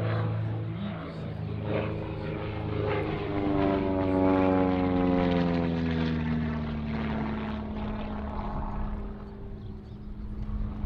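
TB-30 Epsilon's single six-cylinder Lycoming piston engine and propeller flying past. The steady drone grows loudest about halfway through, its pitch drops as the plane passes, then it levels off and fades.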